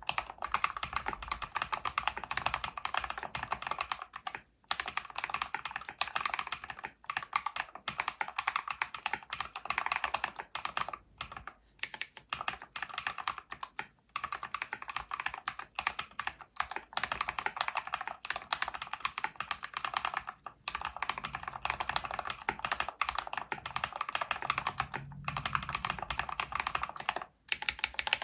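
Mechanical keyboard with Holy Panda tactile switches in a full-aluminium case being typed on, a fast, continuous run of key clacks broken by several brief pauses.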